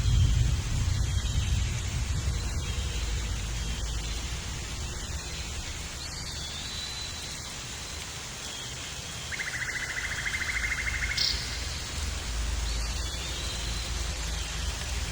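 Jungle ambience: a steady rain-like hiss over a low rumble, with the end of a lion roar dying away at the very start. A short rapid buzzing trill comes in about nine seconds in and lasts nearly two seconds, among faint brief chirps.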